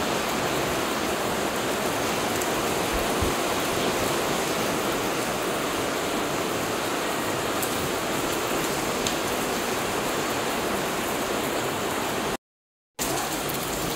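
Heavy rain falling steadily, an even hiss of water, broken by a brief dropout near the end.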